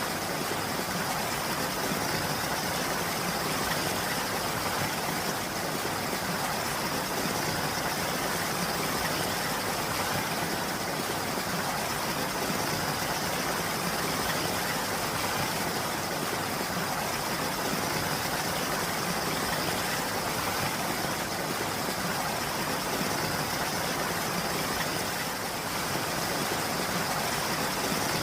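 Steady rain falling, an even hiss without breaks or single drops standing out.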